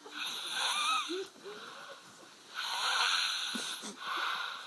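A sleeping man snoring: two long, noisy snoring breaths, the second starting about two and a half seconds in, with a squeaky whistling pitch sliding through them.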